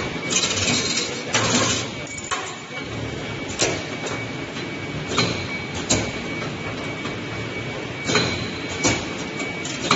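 CNC 2D wire bending machine feeding, clamping and bending stainless steel wire into a coat hanger: short hisses from its air-driven cylinders, sharp clicks and knocks as the tooling moves, over a steady high whine.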